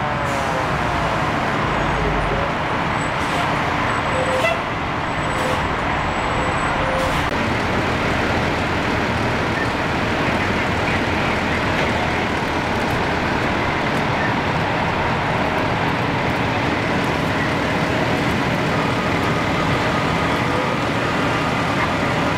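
Fire trucks' diesel engines running at a fire scene, a loud, steady rumble that fills the whole stretch. A siren winds down right at the start, and a few short tones come about four to seven seconds in.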